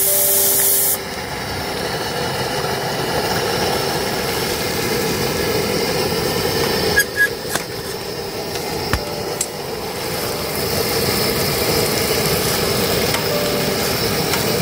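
A pan of stew sizzling and simmering on a portable gas camping stove, a steady hiss with a brighter burst that cuts off about a second in. A few sharp knocks sound around the middle as the cook handles the spatula and the pot lid.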